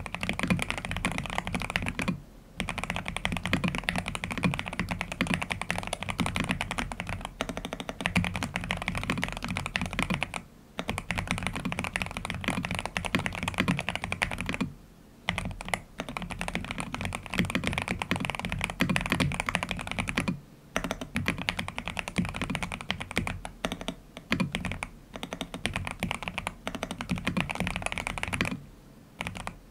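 Fast, continuous typing on a Cyberboard Terminal mechanical keyboard fitted with Aqua King linear switches and a three-layer tape mod. The run of keystrokes breaks off briefly every few seconds.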